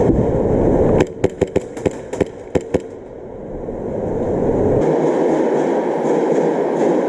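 A quick, uneven string of about eight sharp airsoft gun shots over less than two seconds. Before them a low rumbling noise cuts off suddenly, and a noisy rumble builds up again in the second half.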